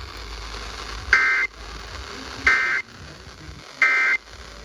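Emergency Alert System SAME end-of-message signal: three short, identical two-tone digital data bursts about 1.3 seconds apart, marking the end of the alert.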